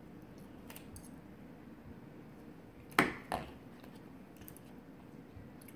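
A metal spoon knocking twice against a plastic meal tray about three seconds in, a sharp clack followed by a softer one.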